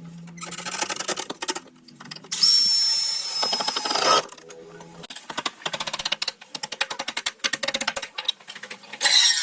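Woodworking tool noises: rapid clicking and ratcheting throughout. A power tool runs loudly with a steady high whine for about two seconds, starting a couple of seconds in.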